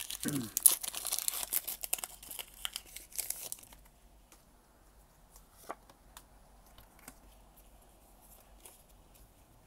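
A Pokémon booster pack's foil wrapper being torn open and crinkled, with one sharp rip about a second in. The crinkling stops about four seconds in, and a few faint clicks follow as the cards are handled.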